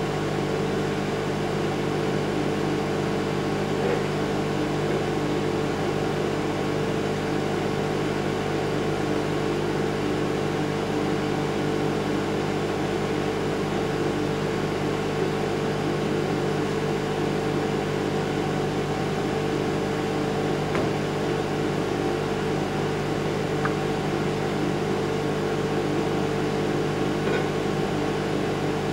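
Samsung microwave oven running, a steady hum as it heats a raw egg in its shell.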